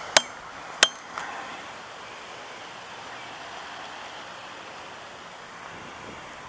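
Two sharp clicks less than a second apart, the second with a brief metallic ring, then a steady hiss of outdoor background.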